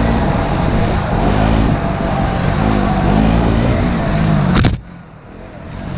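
Motorcycle engine running under changing throttle, its pitch rising and falling again and again. About three-quarters of the way through there is a sharp click, and the sound drops to much quieter.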